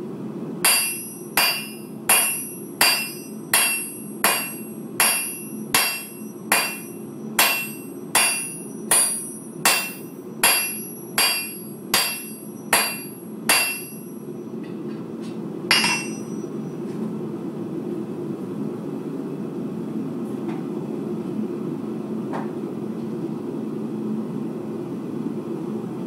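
Blacksmith's hammer striking hot steel on an anvil in a steady rhythm, a little over one blow a second, each blow ringing. About eighteen blows, stopping at about halfway, then a single ringing strike a couple of seconds later. A steady low rush from the running forge continues underneath.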